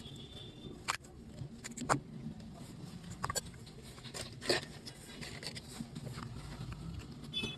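A few sharp clicks and taps, spaced about a second apart, over a low steady background rumble.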